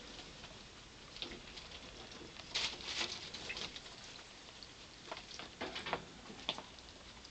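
Pet rats pawing and dipping into a shallow water bowl to fish out peas: scattered small splashes and taps, with a busier flurry about two and a half seconds in and more around five to six and a half seconds.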